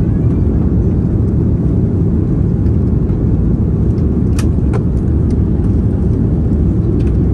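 Steady, loud rumble inside the cabin of a SWISS Airbus A340-300, the drone of its four CFM56 engines and the airflow, with a few light clicks from the cabin around the middle and near the end.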